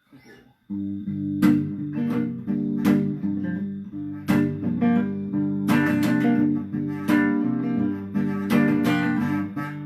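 Guitar chords strummed in a steady rhythm, starting about a second in after a faint handling sound: the instrumental opening of a song before the singing comes in.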